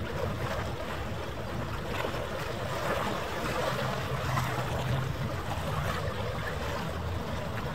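Steady harbour ambience of wind and water noise, with a low rumble underneath.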